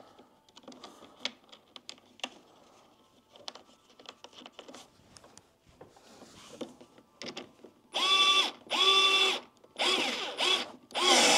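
Bosch cordless electric screwdriver running in four short bursts near the end, its motor whine rising and falling as it starts and stops. Before that come faint clicks and rattles of metal and plastic furniture parts being handled.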